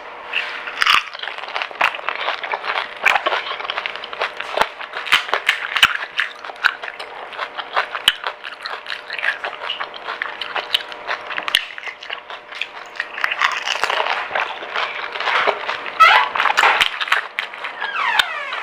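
Close-up crunching and chewing of pani puri, the crisp hollow puri shells cracking between the teeth in many sharp crackles.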